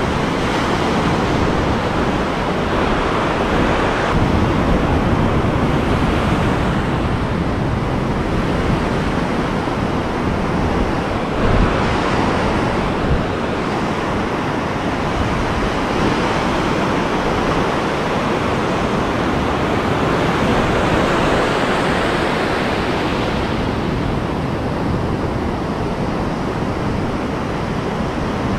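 Ocean surf: waves breaking and foamy water washing in and out across the shallows, a steady rushing wash that swells and eases every several seconds.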